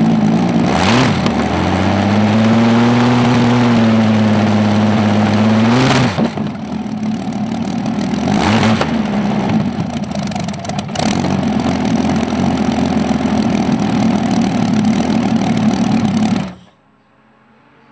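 A 27-litre Rolls-Royce Meteor V12 tank engine running through short open stub exhausts. It is revved up and held for a few seconds, then drops back to a steady fast idle, with a few sharp cracks from the exhaust. The sound cuts off suddenly near the end.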